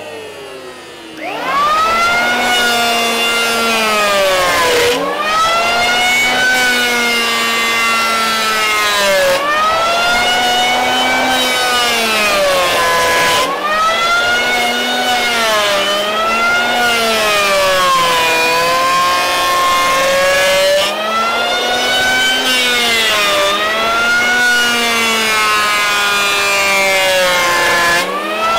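Triton 180 mm electric hand plane starting up about a second in, then planing hardwood. Its motor pitch sags each time the blades bite into a pass and climbs back as the load eases, over and over.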